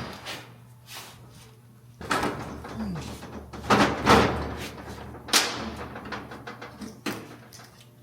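A few sharp knocks and clanks, about two seconds in, around four seconds in and again a little later, with scraping and rustling between: metal suspension parts and tools being handled during a front air-bag swap on a Honda Civic.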